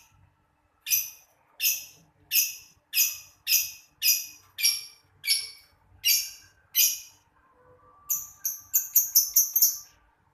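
Lovebird calling with loud, high-pitched chirps, about one every two-thirds of a second, then a quicker run of short chirps near the end.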